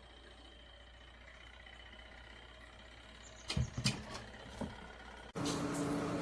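Faint steady hum, a few sharp knocks a little past the middle, then a louder steady motor hum with a clear tone that comes in suddenly near the end.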